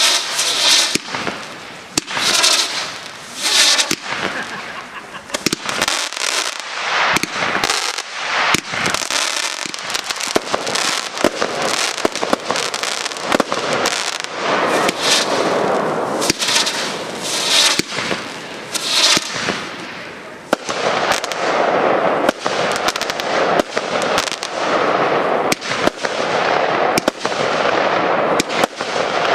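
Aerial fireworks display: shells bursting one after another in quick succession, many sharp bangs over a steady hiss.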